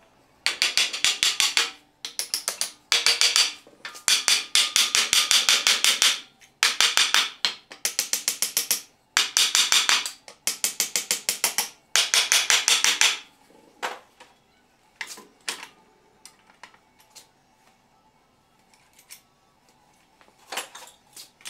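Quick runs of hammer blows on wood, in bursts of one to two seconds, as wooden felloes are driven down onto the spoke tenons of a new wood wheel. After about 13 seconds only a few scattered light knocks.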